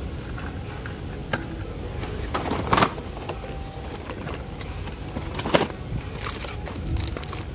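Plastic toy packaging crinkling and rustling as a hand rummages through blister cards and boxes on a shelf, with a few short crackles over a steady low background hum.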